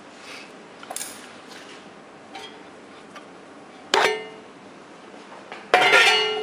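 Steel parts of a dumpling machine being handled and knocked together: a few light taps, then two loud ringing metal clanks about four and six seconds in.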